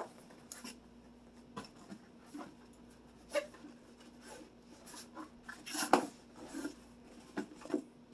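Irregular clicks and knocks of tools and metal parts of a rear bicycle rack being handled during disassembly, over a steady low hum. The loudest knocks come at the very start and about six seconds in.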